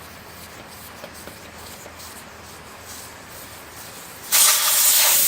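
A few faint ticks as the valve core is unscrewed. About four seconds in, a sudden loud, steady hiss of air rushing out of the motorcycle's rear inner-tube valve once the core comes out: the tyre deflating.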